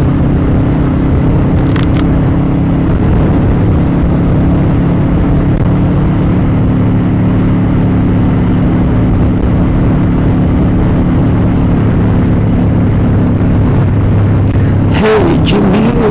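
Motorcycle engine running at a steady speed under a loud rush of wind noise on the rider's microphone. A short click comes about two seconds in, and a brief wavering tone sounds near the end.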